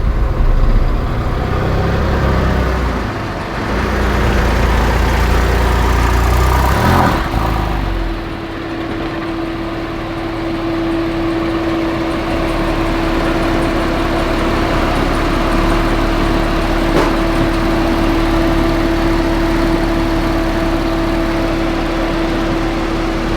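Porsche 911 Carrera S (997.1) 3.8-litre flat-six running as the car is driven. The first several seconds are strong and uneven, with a brief dip about three seconds in, before it settles into a steadier drone with a constant tone. The car still shakes on clutch engagement, which the owner puts down to a clutch that is slipping and grabbing.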